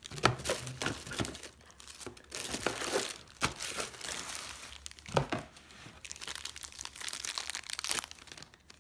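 Thin plastic packaging bags crinkling and rustling as boxed accessories are handled and pulled out of a cardboard box, with a few sharp knocks along the way.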